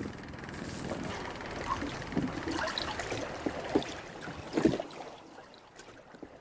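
Water splashing and gurgling around a small boat, with scattered knocks and handling noises; the loudest knock comes about four and a half seconds in, and it quietens after that.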